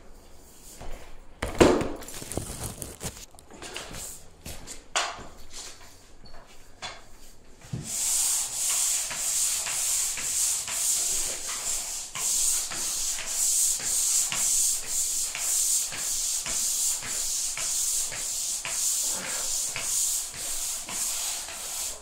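Pole sander rubbing back and forth across a ceiling, a rhythmic scraping of about two strokes a second that starts about eight seconds in. Before that there are scattered knocks and one sharp thump near two seconds in.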